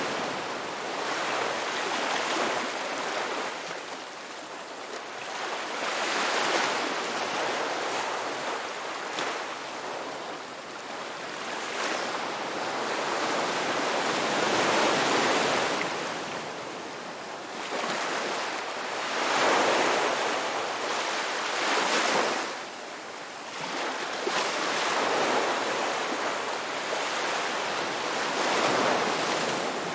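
Ocean waves breaking and washing up on a beach, the surf swelling and easing every three to five seconds with no set rhythm.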